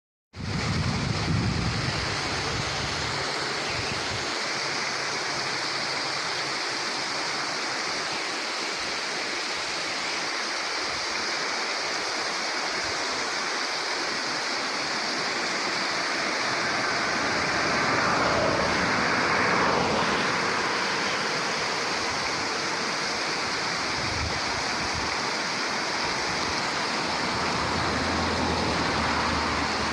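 Small waterfall: the steady rush of falling water, swelling briefly about two thirds of the way through.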